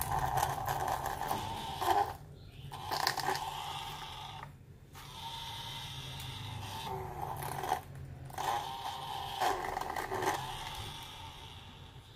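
A handheld tool scraping leftover adhesive off a phone screen panel, in stretches broken by three short pauses, over a low steady hum.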